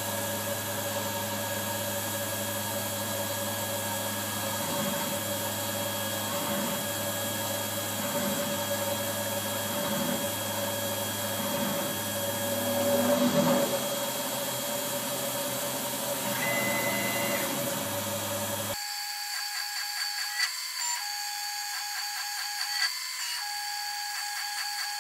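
Tormach PCNC 770 CNC mill's spindle running steadily while its cutter bores holes through a carbon fiber sheet into the sacrificial plate. A low hum pulses a little over once a second and swells briefly near the middle. The low hum cuts off abruptly about two-thirds of the way in, leaving a thinner machine sound.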